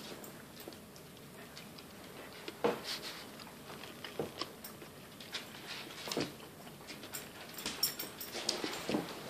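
A Pembroke Welsh Corgi's claws clicking and tapping at an irregular pace on a parquet wood floor as she spins in circles, with a few louder knocks among them.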